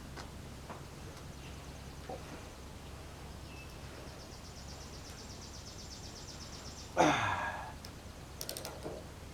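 Quiet outdoor background with a steady low hum and a faint high trill. About seven seconds in comes a brief, louder sound with a falling pitch, followed by a few light clicks.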